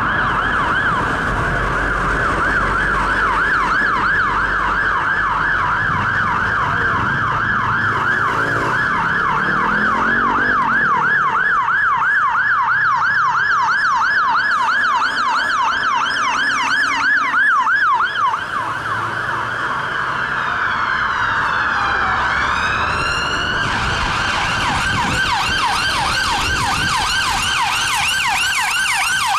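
A London fire engine's electronic siren on a fast yelp, rising and falling about three times a second. Around twenty seconds in, the pitch sweeps down and back up, and the siren switches to a harsher, higher-pitched tone.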